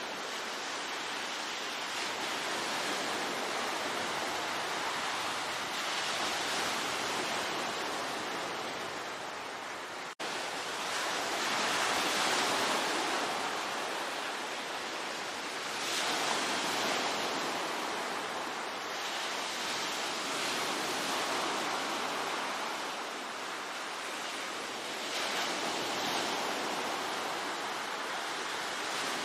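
Ocean waves breaking on the shore, a continuous rush of surf that swells and eases every few seconds. The sound cuts out for an instant about ten seconds in.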